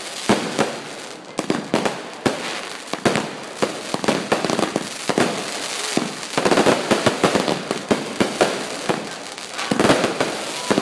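Aerial fireworks bursting close overhead: a dense, continuous string of sharp pops and bangs, with heavier volleys about six seconds in and again near the end.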